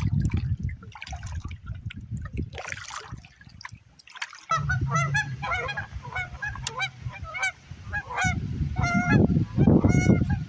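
A low rumble of noise for the first few seconds, then a flock of large waterfowl, geese or swans, honking repeatedly from about four seconds in, the calls coming in quick runs and getting louder near the end.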